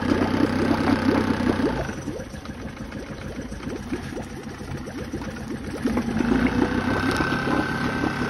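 Mercury outboard motor running just after being cranked. It dips to a quieter note for a few seconds, then picks up again about six seconds in.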